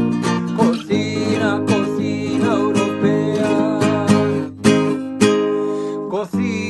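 Jingle music led by strummed acoustic guitar, with a wavering melody line over sustained chords.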